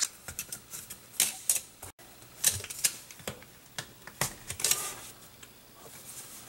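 Irregular clicks and knocks of a rubber union coupling and its metal band clamps being handled and pushed onto a plastic check valve and PVC pipe, a few louder knocks in the first five seconds, then lighter taps.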